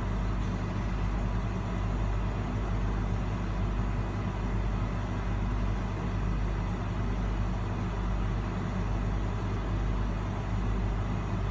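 Steady hum and whoosh of a running fan, with a low drone underneath, unchanging throughout.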